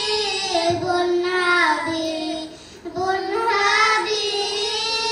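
A group of children singing a madhaha, a Maldivian devotional song in praise of the Prophet, together on one melodic line with sliding, ornamented phrases, and a short break for breath about two and a half seconds in.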